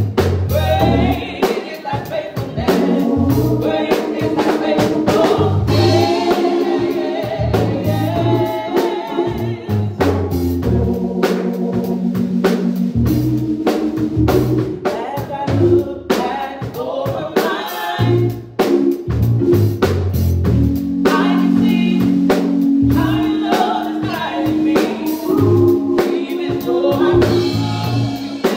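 A small group of women singing a gospel song through microphones, with live instrumental backing and a steady drum beat.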